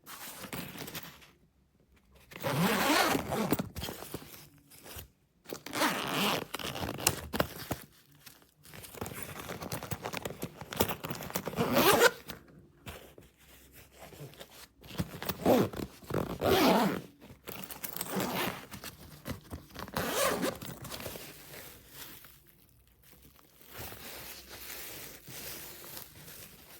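Zipper on a quilted laptop bag being pulled open and shut several times, each pull a scratchy run lasting a second or two, with handling rustle of the bag's fabric between the pulls.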